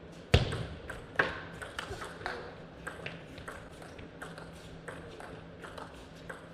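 Table tennis rally: the ball clicks off the rackets and the table two or three times a second, ringing a little in a large hall. A heavier knock about a third of a second in is the loudest sound.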